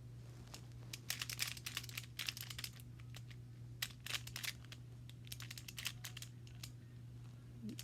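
Plastic Rubik's cube being turned quickly, its layers clicking and rattling in short flurries separated by brief pauses, over a steady low electrical hum.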